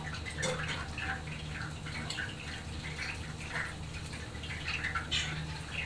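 A person eating katsudon close by: soft, wet chewing and mouth sounds, several a second, over a steady low hum.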